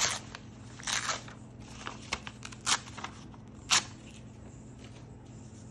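Scissors cutting paper: about five short, sharp snips spaced irregularly, stopping about four seconds in.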